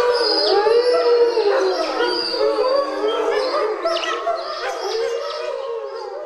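A pack of wolves howling in chorus: several long, wavering howls overlap at different pitches, with higher yelping cries among them. The chorus fades out near the end.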